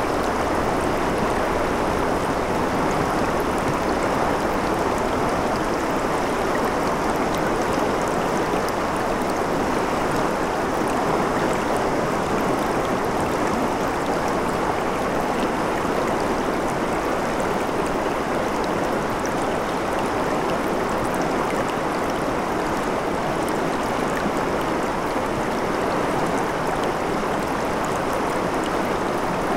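Shallow river water running over rocks in a riffle: a steady, even rush of flowing water.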